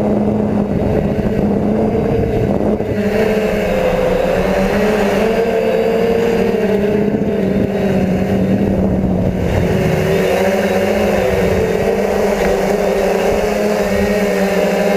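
DJI F450 quadcopter's motors and propellers running in flight, a steady buzzing hum whose pitch wavers up and down as the throttle changes.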